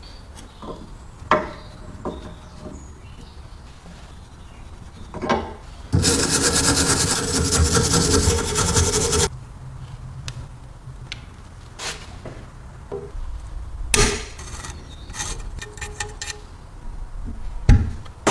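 Workshop handling sounds: scattered sharp clicks and knocks of parts and tools, with a loud, steady rasping noise that starts suddenly about six seconds in and stops about three seconds later.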